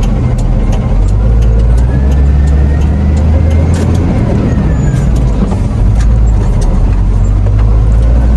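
A heavy truck's diesel engine running steadily on the road, heard from inside the cab as a loud low drone, with scattered sharp ticks and a faint whine that rises and then falls midway.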